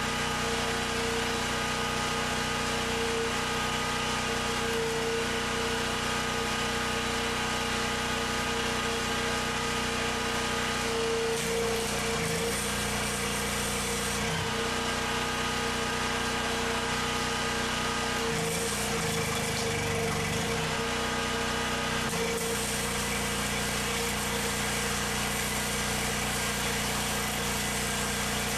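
Portable gasoline generator engine running steadily. Twice, for a few seconds each time, about 11 s in and about 18 s in, its note shifts and a hiss rises over it, as a load comes on.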